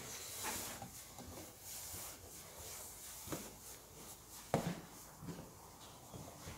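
Footsteps on a hard floor and rubbing from a hand-held phone, with one sharper knock about four and a half seconds in.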